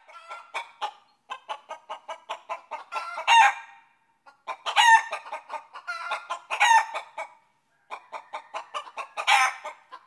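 A hen clucking in quick runs of short clucks, broken about every two seconds by a louder drawn-out squawk: a cackle.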